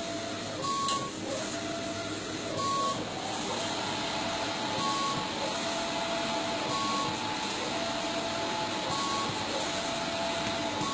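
Large-format inkjet banner printer printing, its print-head carriage shuttling back and forth across the media. The carriage drive whines with a lower, longer tone alternating with a short higher tone, the cycle repeating about every two seconds over a steady machine hiss.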